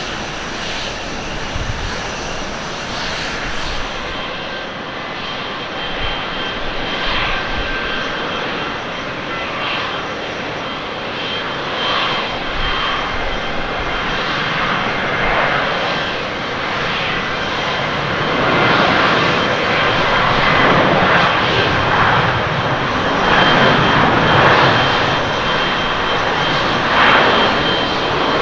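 Jet airliner engines at takeoff power as a China Eastern Airbus narrowbody accelerates along the runway, the steady roar growing louder over the second half as it nears rotation.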